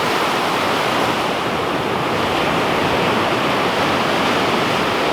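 Ocean surf washing onto a beach, a steady loud rush of water with no distinct breaks.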